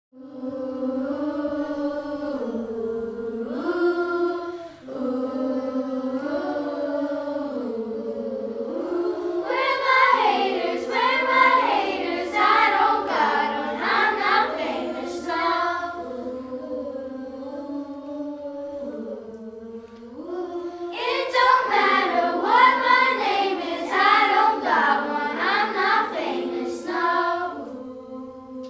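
Elementary school children's glee club singing a cappella in harmony. A held, stepping harmony line opens the passage, and fuller, louder singing comes in about ten seconds in and again about twenty-one seconds in.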